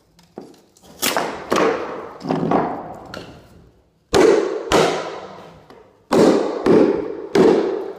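Hammer blows driving tack strip nails into the subfloor: a series of about ten sharp knocks at uneven spacing, the heaviest in the second half, each ringing briefly.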